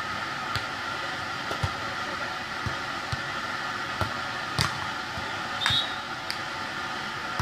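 Beach volleyball rally: a string of short dull smacks as the ball is struck by players' hands and forearms, the hardest a bit over halfway through, over a steady background hiss.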